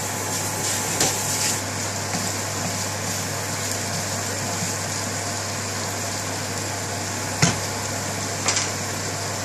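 Diced potatoes sizzling in oil in a frying pan, with a few sharp knocks of a spoon against the pan as they are stirred, over a steady low hum.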